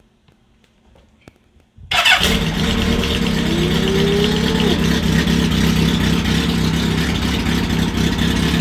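Kawasaki engine starting suddenly about two seconds in, then running steadily at idle.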